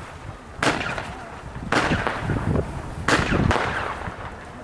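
Keller 'Crazy Countdown' consumer firework compound firing crossette shots, comets that split into four stars. Four sharp pops: one under a second in, one near two seconds, and two close together just after three seconds.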